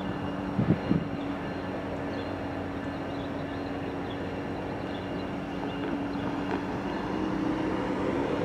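Diesel freight locomotives, a Norfolk Southern unit leading and a Kansas City Southern unit trailing, running slowly with a steady engine drone that grows louder near the end as they draw closer. Two short thumps just under a second in.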